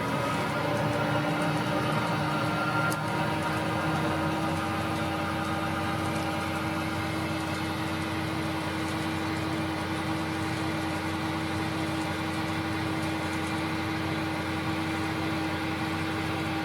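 Recorded KiHa 58 diesel railcar engine sound (DMH17H diesel) played from a KATO Sound Box model-railway sound unit: a steady engine drone at idle-like revs with a constant hum, cutting off suddenly at the end.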